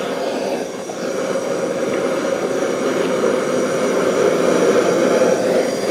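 Handheld butane torch burning with a steady rushing roar, its flame played into a cheese wheel, growing slightly louder.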